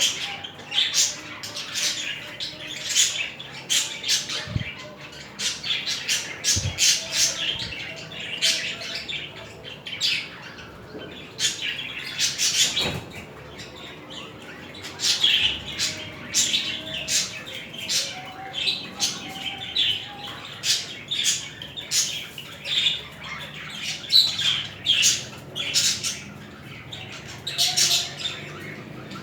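A pair of budgerigars chattering and squawking in a dense, unbroken run of short, sharp calls, several a second: the warbling chatter budgies make when courting.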